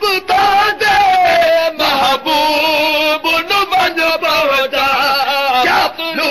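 Male voices chanting a Punjabi devotional nazm, a melodic, wavering line sung without pause.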